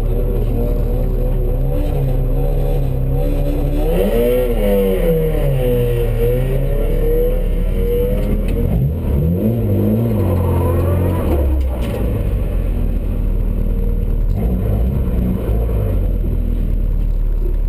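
Rally car engine heard from inside the cabin: idling, revved up and back down about four seconds in, then revved harder around nine to eleven seconds before a sudden drop as the car pulls away onto the stage.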